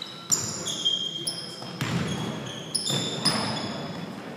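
Basketball players' sneakers squeaking on a hardwood gym floor in several short, high-pitched squeals, mixed with a basketball bouncing and thuds of footfalls, echoing in the gym.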